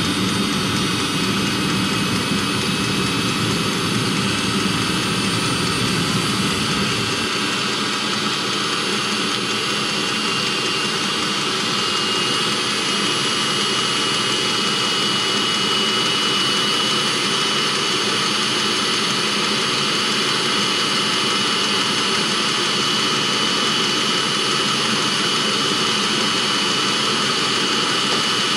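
A 2016 Mercedes Sprinter's diesel-fired auxiliary block heater running with a steady, loud, jet-like whoosh. A low rumble under it drops away about seven seconds in, and a steady high whistle joins later.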